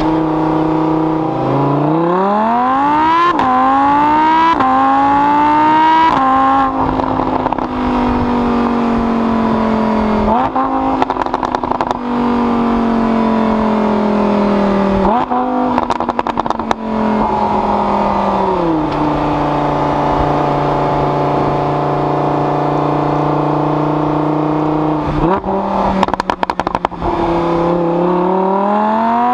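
Lamborghini Huracán's 5.2-litre V10, heard from inside the cabin, pulling hard through several quick upshifts with the revs climbing and dropping back at each shift. It then holds a steady cruise, with downshift throttle blips and a run of sharp exhaust pops about halfway and again a few seconds before the end, before accelerating once more.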